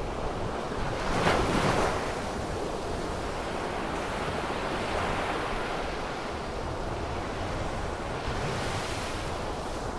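Wind on the microphone and water washing, a steady rushing noise that swells louder about a second in and again near the end. No motor tone is heard.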